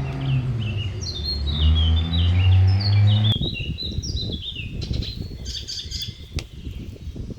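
Small birds chirping, a run of short falling notes repeated quickly. Under them a low steady hum stops abruptly about three seconds in, after which faint crackling and rustling remains.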